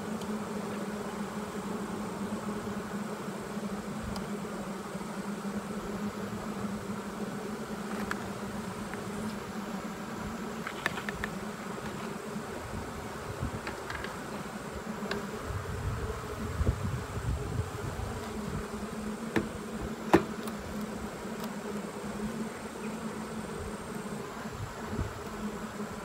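Honey bees buzzing steadily over an open horizontal hive, a low even hum. Around the middle come several low puffs of a bee smoker's bellows, and a few sharp clicks of a metal hive tool against the wooden frames, the loudest about two-thirds of the way through.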